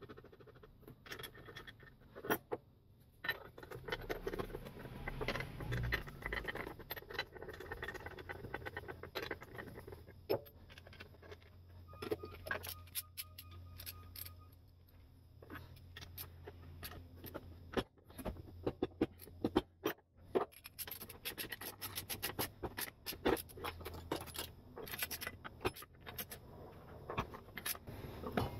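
Metal parts of a Cardinal Speed-Vise being handled and fitted together: small clicks, taps and scrapes as the lead screw and sliding jaw are worked on the bench. The clicks come thicker and faster in the second half.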